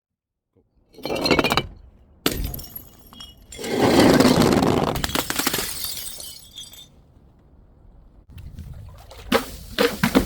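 Glass bottles smashing and shattering in separate crashes: a short one about a second in, a sharp hit at two seconds, then the longest and loudest crash with shards scattering around four seconds. A cluster of sharp breaks comes near the end.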